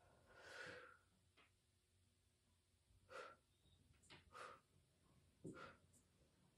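Faint breathing of a woman exercising: a longer breath near the start, then several short exhales.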